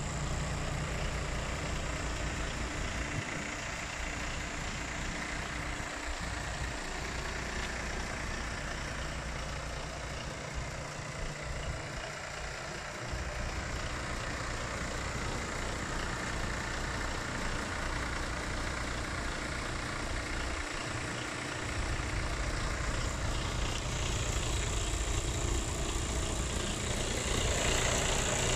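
Iveco Stralis 460 tractor unit's Euro 6 diesel engine idling with a steady low hum, louder in the last few seconds.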